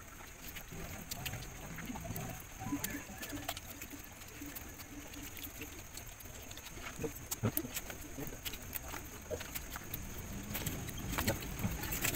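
People eating rice and steamed tilapia with their hands off a banana leaf: scattered small clicks and smacks, under low, indistinct voice-like murmurs and a faint steady high-pitched tone.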